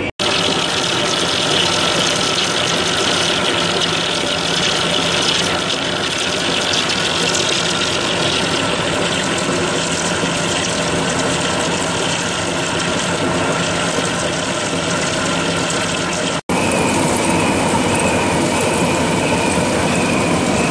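Large lathe turning a long steel bar while a trepanning tool cuts a 10½-inch bore through it: a steady machine noise with a dense hiss and several steady tones. It is broken twice by a sudden, very short silence, once just after the start and once about three-quarters of the way through.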